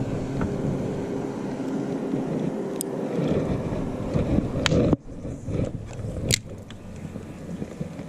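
Boat motor running with a steady hum that drops away abruptly about five seconds in, with a few sharp clicks over it.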